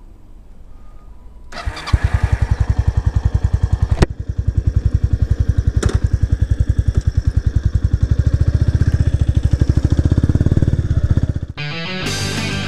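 Kawasaki 250TR's single-cylinder four-stroke engine, fitted with an aftermarket Yamato stainless muffler, pulling away and accelerating: a loud, even thumping of exhaust pulses that comes in about a second and a half in and quickens as the revs rise, broken briefly twice. It cuts off near the end and rock music takes over.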